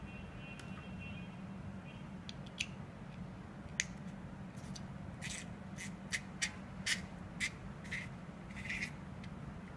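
Small stainless steel atomizer parts (an Aerotank Mega's steel tube and fittings) clicking and scraping against each other as they are handled and screwed together, about ten short sharp clicks and scrapes starting about two and a half seconds in. A steady low hum sits underneath.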